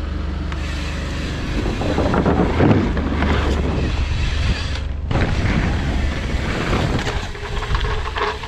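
Wind rushing over an action camera's microphone as a mountain bike rolls fast down a wooden drop-in ramp and lands on an inflated airbag, with a steady low rumble underneath. The noise is strongest a couple of seconds in.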